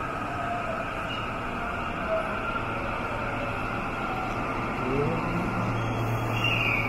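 Steady hum and rumble of an underground metro station with a Midosuji Line train standing at the platform. A low hum grows about four to five seconds in, with a short rising whine about five seconds in.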